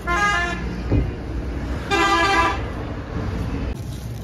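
Vehicle horns honking: a short honk at the start and a slightly longer one about two seconds in, each a steady, unwavering tone. A knock sounds about a second in, over a steady low rumble of traffic or idling engines.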